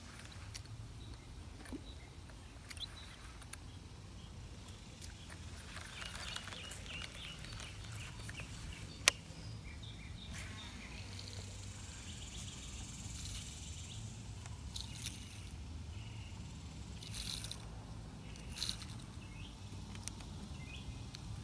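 Handling noise and scattered clicks from a baitcasting rod and reel being worked, over a steady low outdoor rumble, with one sharp click about nine seconds in.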